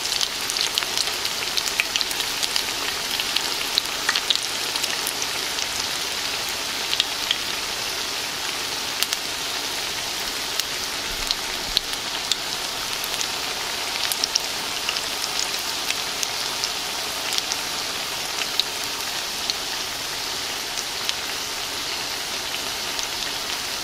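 Potato cakes shallow-frying in oil in a cast-iron skillet: a steady sizzling hiss with frequent small pops and crackles, a little livelier in the first several seconds.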